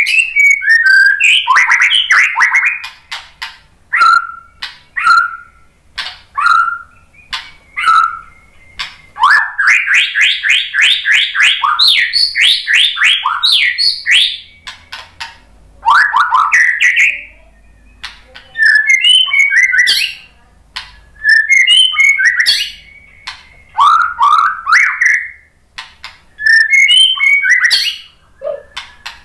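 Caged white-rumped shama (murai batu) singing in phrases of loud whistled notes mixed with sharp clicks, with short pauses between them. About nine seconds in comes a fast run of repeated notes, about four a second.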